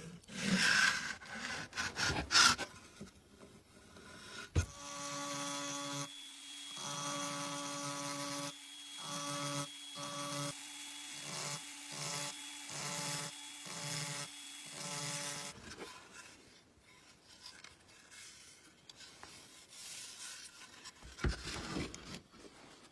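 Rubbing and scraping for the first few seconds, then a small electric motor runs with a steady hum. After a few seconds it switches on and off in short bursts about once a second, and it stops about 15 seconds in.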